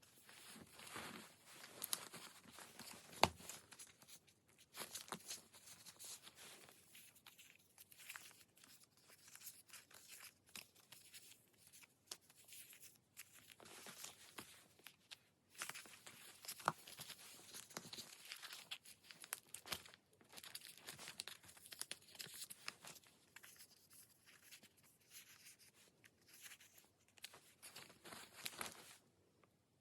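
Paper and stickers rustling as they are handled, in irregular scratchy bursts with a couple of sharp taps; it stops shortly before the end.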